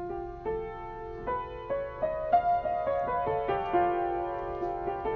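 Piano playing a slow, improvised theme: single notes and chords struck about twice a second, each left ringing under the next.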